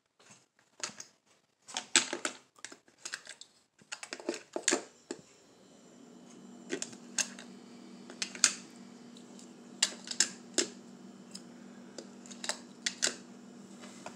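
Hot Wheels die-cast metal cars handled in a clear plastic compartment case: irregular clicks and clacks as cars are pulled from and pushed into the plastic slots.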